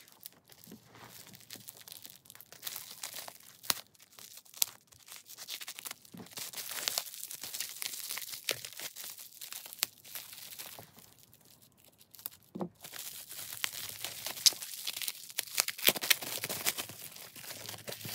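Plastic bubble wrap being pulled open by hand, crinkling and tearing in irregular sharp crackles, with a short lull a little past the middle.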